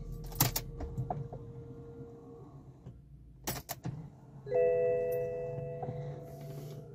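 Inside a BMW E60, a few sharp clicks and knocks from handling the steering wheel over a steady low hum. About four and a half seconds in, the dashboard's multi-tone warning chime sounds and fades over a second or so while the cluster's warning lights are on.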